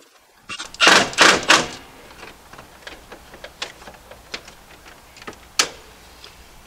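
Hands at work in a residential breaker panel, moving circuit breakers and their wires: a second of loud scraping and rustling, then a string of small clicks and ticks with one sharper snap about five and a half seconds in.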